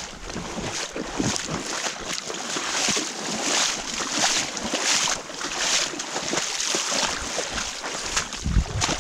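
Footsteps wading through a shallow creek, water sloshing and splashing around the boots every half second to a second. A low thump comes near the end.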